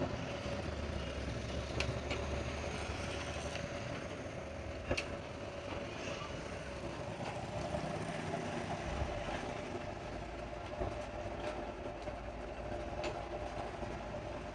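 A vehicle engine running steadily, with a few light clicks and knocks over it.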